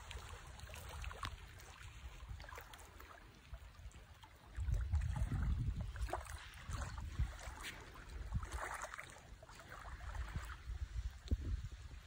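Faint lapping of calm lake water at the shoreline, with wind rumbling on the phone's microphone. The rumble swells about four and a half seconds in and comes and goes in gusts after.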